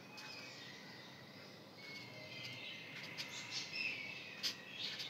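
Faint strokes of a felt-tip marker writing on paper, over a quiet hiss, with faint short high-pitched tones now and then.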